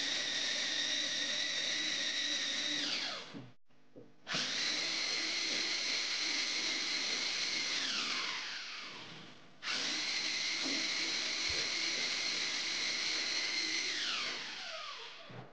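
Handheld electric belt sander running on pine workpieces with a steady high whine, coarse-sanding away planer marks. Three times the whine falls in pitch and dies away as the motor spins down: about three seconds in, around eight to nine seconds, and near the end. It starts again at full speed after the first two.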